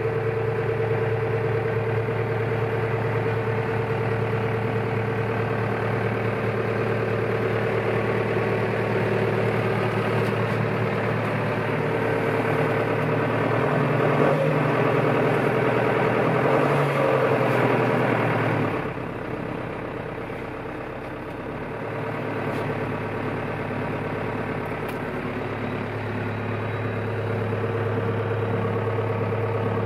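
John Deere 6200 tractor's four-cylinder turbo diesel idling, heard from inside the cab. Its speed lifts slightly about halfway through, drops back with a dip in loudness about two-thirds of the way in, then slowly picks up again near the end.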